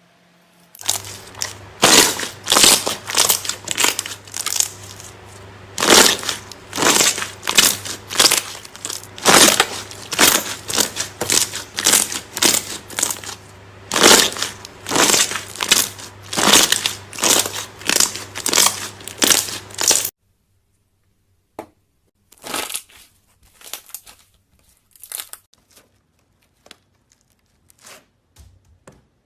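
Slime being squeezed and pressed by hand, giving sharp crackling, crunching pops about twice a second. They stop suddenly after about twenty seconds, then come back fainter and sparser.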